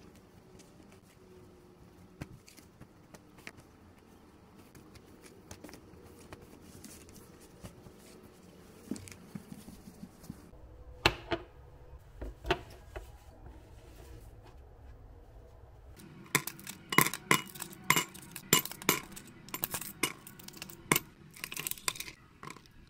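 Hard household objects being handled, clinking and knocking like dishes or cutlery. It starts with scattered light clicks, has a couple of louder knocks around the middle, and ends with a quick run of clinks over the last six seconds or so.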